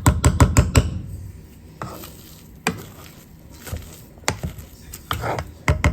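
Potatoes being mashed by hand in a pot: a utensil knocking against the pot and squishing through the potatoes, a quick run of strikes in the first second, then single knocks every second or so.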